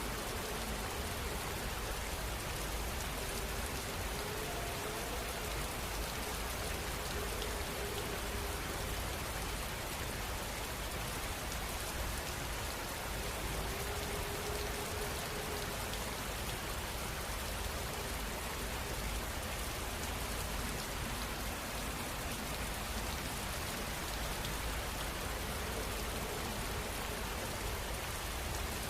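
Steady rain ambience sound effect: an even hiss of rain falling, constant in level throughout.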